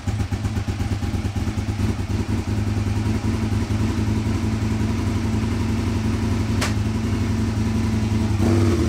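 2002 Aprilia RSV Mille's 998 cc V-twin running steadily. Its note shifts slightly near the end.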